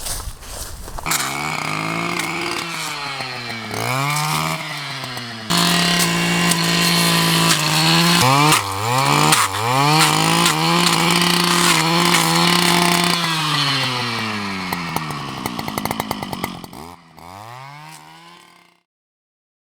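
Petrol brush cutter with its blade guard removed, cutting gum rockrose shrubs. The engine revs up and down again and again as the throttle is worked, holds at full speed for several seconds in the middle, then winds down and stops abruptly near the end.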